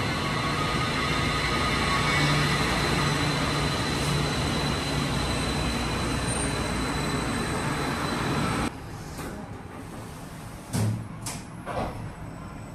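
Taipei Metro Wenhu line rubber-tyred train running beside the platform: a steady rushing noise with a faint high whine. About two-thirds of the way in it cuts off abruptly, and a few short knocks and clicks follow.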